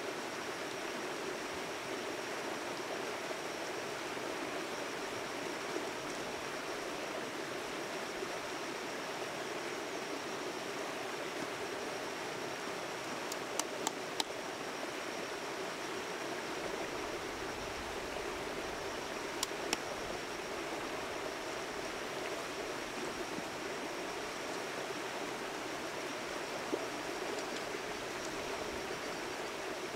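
Steady rushing noise like running water, with a few sharp clicks near the middle and one later on.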